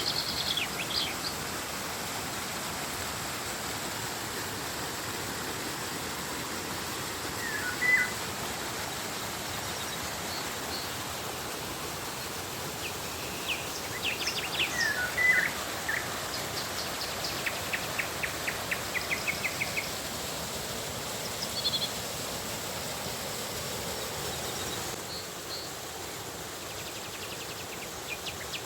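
Steady rush of flowing river water, with birds calling now and then over it, including a fast trill of evenly repeated notes for a few seconds past the middle.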